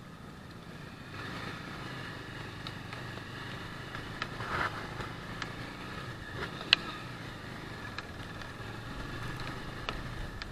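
A car driving: steady engine and road noise, with a few light clicks.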